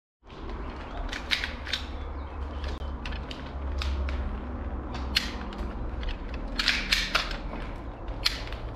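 Airsoft guns firing scattered single shots: about a dozen sharp, irregularly spaced cracks, with a low rumble of wind or movement on the microphone.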